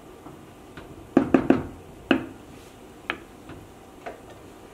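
A wooden spoon knocking against the rim of a cooking pot: three quick knocks about a second in, then a single knock and a fainter last one.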